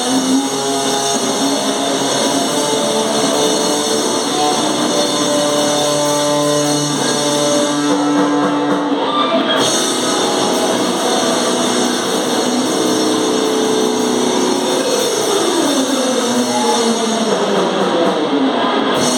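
Loud noise-metal band music: distorted guitar over drums, with held notes, and guitar notes sliding down in pitch over the last few seconds.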